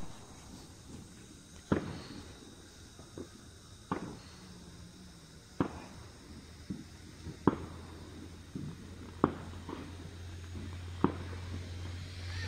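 A run of short, sharp knocks, roughly one a second, alternately louder and softer. A low steady hum comes in about halfway through.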